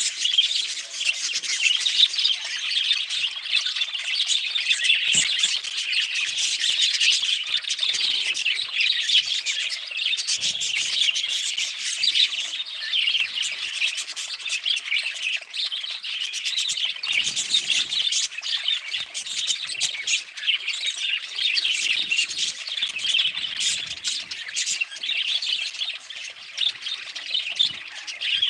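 Pet budgerigars chirping and chattering without a break, with occasional sharper squawks.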